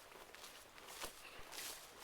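Faint footsteps of a person walking, soft irregular scuffs.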